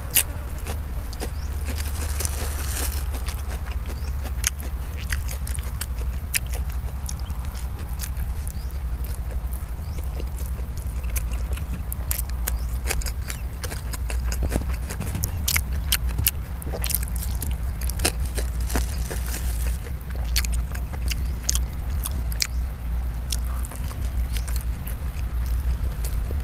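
Close-miked chewing and biting of food: many sharp, wet mouth clicks at an irregular pace, over a steady low rumble.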